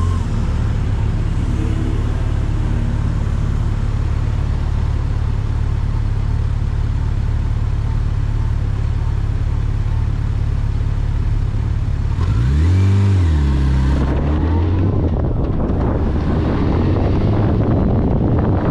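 A motor vehicle on the move: a steady engine drone with road noise. About twelve seconds in, the engine note rises and falls once. After that the noise turns rougher, like wind buffeting.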